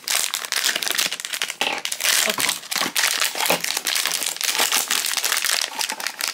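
Silver foil blind-box pouch crinkling and crackling continuously as it is handled and pulled open by hand.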